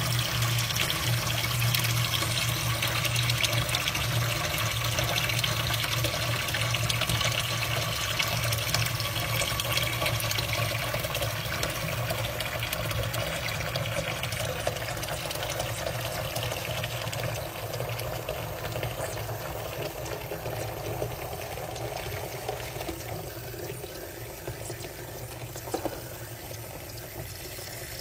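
Tap water running into a stainless steel sink as it fills and bath powder foams up on the surface: a steady splashing rush with a low hum underneath. It grows gradually quieter over the second half, with one small click near the end.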